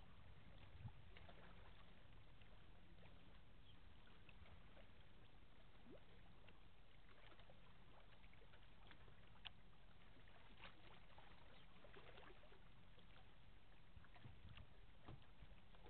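Near silence: faint riverside ambience with a low hum and a few small clicks.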